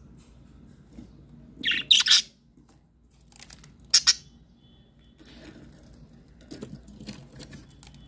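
Budgerigars giving harsh squawks: a loud cluster about two seconds in and a short sharp one about four seconds in, with softer, scattered squawks later.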